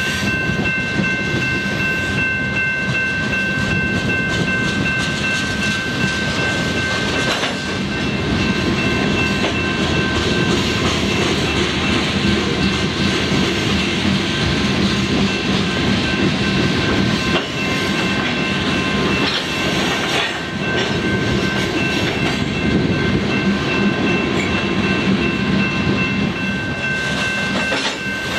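A freight train of loaded rock gondola cars rolling past at steady speed: a continuous rumble with the clatter of wheels over the rail joints. Several steady high-pitched ringing tones sound over it the whole time.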